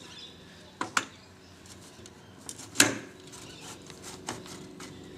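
Four sharp knocks and clunks, the loudest about three seconds in, as a blokart's rear wheel axle is lined up and slid into its socket in the chassis.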